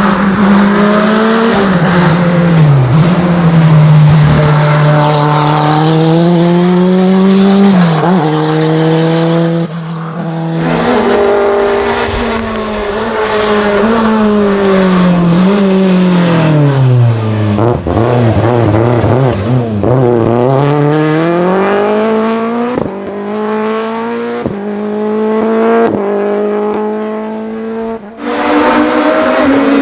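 Racing car engine driven hard up a hill climb: revs climb and fall again and again through gear changes and lifts, with a deep dip in pitch in the middle. A few sharp cracks come in the second half.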